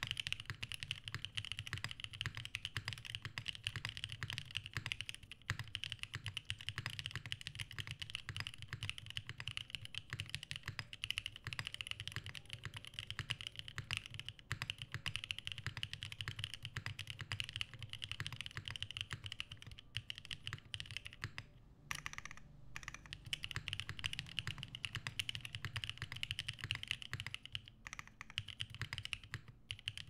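Typing on a Geonworks Frog Mini 60% mechanical keyboard with Krytox-lubed WS Onion switches, an FR4 half plate and GMK keycaps: fast, continuous keystrokes, with a brief pause a little past two-thirds through.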